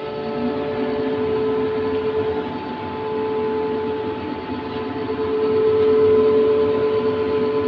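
Air handling unit's star-delta-started fan motor and blower running up after start-up: a steady hum with a clear tonal whine over the rush of moving air. It grows louder just after the start and again about five seconds in.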